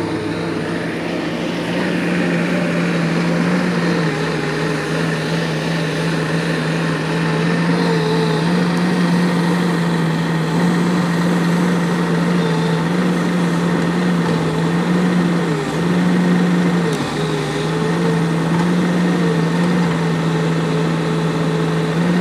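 Crawler excavator's diesel engine running steadily with a loud, even hum.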